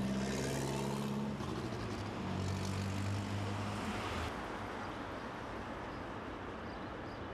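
Street traffic: a heavy vehicle's engine runs with a steady low hum for about the first four seconds, then fades, leaving a general traffic rumble.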